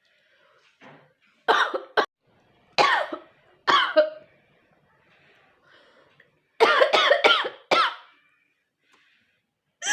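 A woman coughing deliberately and repeatedly, loud forced coughs in short bursts, with a quick run of several coughs about two-thirds of the way through.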